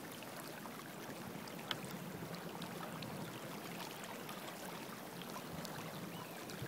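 Water washing along the wooden hull of a futreau, a flat-bottomed river sailing boat, under way: a low, steady wash with a small click about two seconds in.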